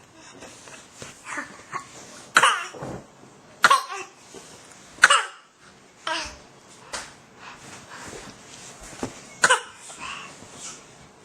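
A string of short, deliberate coughs, done for play and not from illness, with smaller coughs and throat sounds between the loud ones. Several loud coughs come in the first half, and one more comes near the end.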